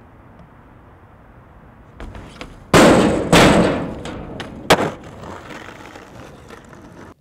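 Skateboard coming down hard on asphalt: two loud smacks about half a second apart, a sharp click about a second later, then the wheels rolling over rough pavement until it cuts off.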